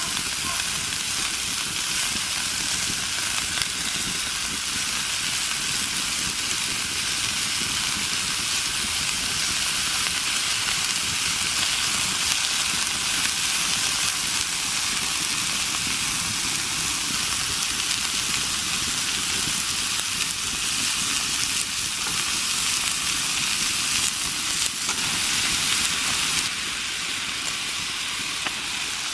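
Food sizzling in a frying pan over a wood campfire: a steady frying hiss, a little quieter for the last few seconds.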